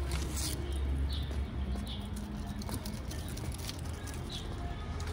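Outdoor courtyard ambience: a steady low rumble with scattered short bird chirps and a few light clicks.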